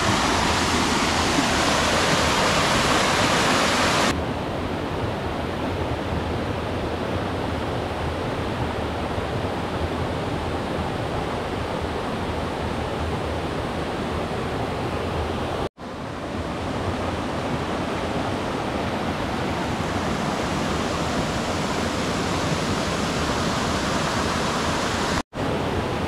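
Steady rush of falling water at the Miyunu Ella waterfall, about 60 m tall. About four seconds in the hiss loses its sharpest top and gets a little softer, and it drops out for an instant twice, near the middle and just before the end.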